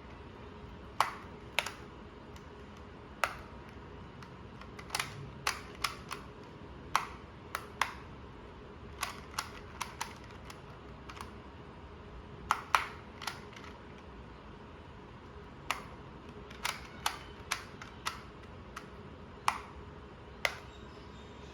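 Magnetic magic clock puzzle clicking as it is worked: sharp, irregular clicks as the dials are turned and the pins pushed, some single and some in quick runs of two or three.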